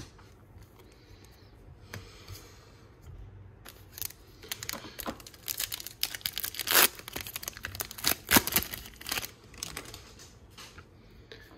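A 2022 Bowman baseball card pack's wrapper being torn open and crinkled by hand: a run of sharp crackles starting about four seconds in, loudest about halfway through and again a little later, then dying down.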